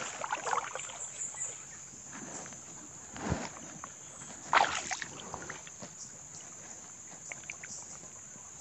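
Water sloshing and splashing as someone moves through flooded forest, with two louder swishes of water about three and four and a half seconds in.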